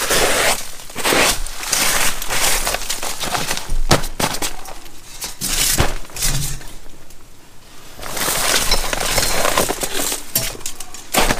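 Irregular rustling and crackling with many sharp snaps, in two long stretches separated by a short lull about seven seconds in.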